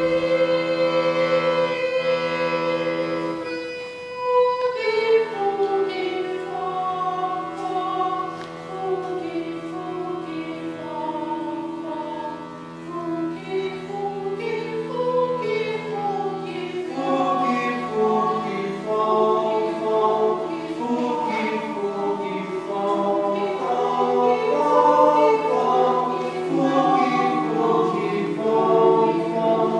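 Background music of choral singing: voices hold one chord for a few seconds, then, after a short break, move into shifting melodic lines.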